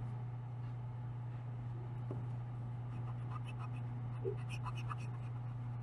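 Pencil drawing lines on paper: faint scratching strokes with a few short ticks, mostly in the second half, over a steady low hum.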